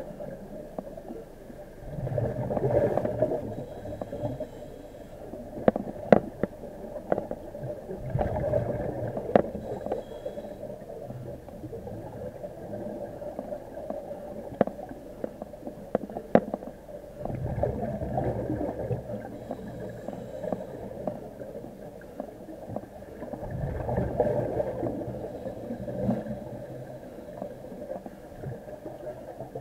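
Divers' breathing heard underwater: a swell of breath and bubbling about every five to six seconds, with scattered sharp clicks between breaths.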